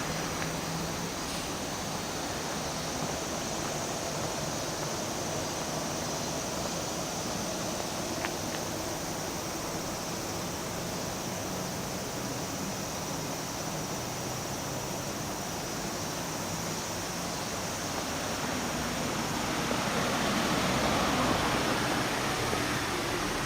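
Steady outdoor background noise that swells a little about twenty seconds in.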